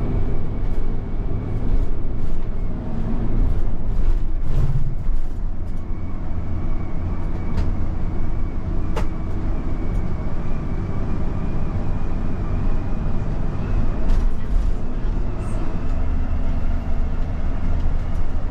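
Motorhome driving at road speed, heard from inside the cab: a steady low engine and road rumble with a few scattered clicks and rattles and a faint steady high whine.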